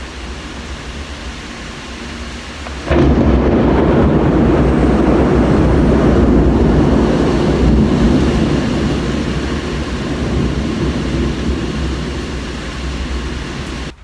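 Steady rush of heavy rain and wind. About three seconds in, a loud clap of nearby thunder breaks in suddenly and rumbles on, slowly fading over about ten seconds.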